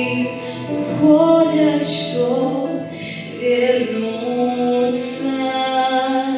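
A child singing a song's last phrase with musical accompaniment, drawing out long held notes.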